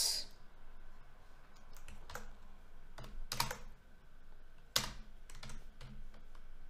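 Computer keyboard typing: scattered, irregular keystrokes with pauses between them, one sharper click about five seconds in.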